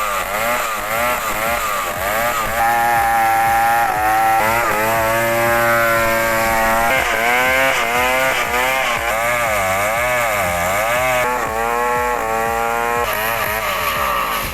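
Two-stroke chainsaw engine revving up and down repeatedly, its pitch rising and falling every second or so.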